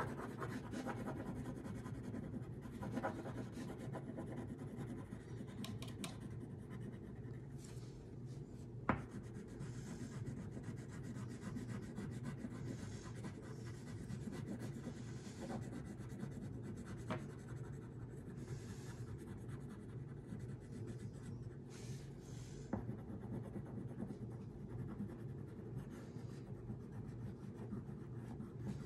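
Wax crayon scribbling back and forth on paper, colouring in a large area in steady strokes. A few sharp clicks come along the way, the loudest about nine seconds in.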